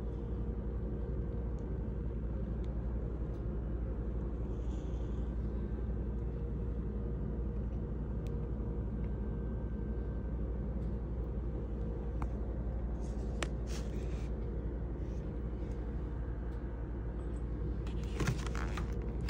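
Steady low background hum and rumble with a few faint steady tones, and a few faint clicks and rustles near the end.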